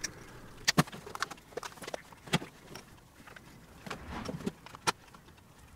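Scattered light clicks and knocks of hands working thick battery cable and setting hand tools down on a metal tool-chest top, as stripped copper cable ends are twisted together for a join.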